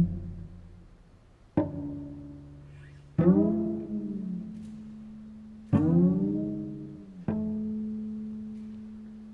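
Cello played pizzicato: four low plucked notes, each ringing out and fading, the second and third bending in pitch as they sound.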